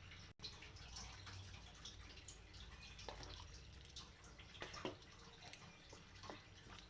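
Chicken and bamboo shoot simmering in a pot without oil: faint, irregular small pops and bubbles.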